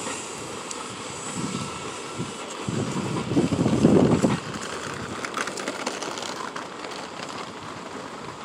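Subway train pulling away down the track and fading into the distance, mixed with gusts of wind on the microphone that are loudest about three to four seconds in.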